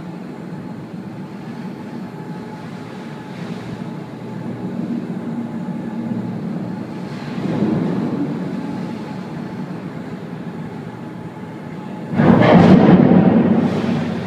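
Steady rumble of a ferry ploughing through a Force 10 gale, with a low hum under wind and sea noise, swelling once about halfway. About twelve seconds in a sudden loud crash as a sheet of spray slams against the forward windows and streams down the glass.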